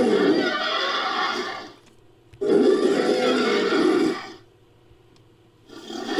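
Designed Neovenator dinosaur creature vocalizations, a sound effect assembled from other creators' creature sounds. Calls of about two seconds each come one after another with short silences between, and a new one begins near the end.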